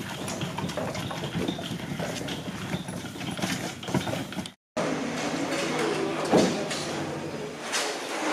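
Outdoor factory-yard ambience: scattered knocks and rattles over a steady hiss, with faint voices. The sound cuts out completely for a moment about halfway through.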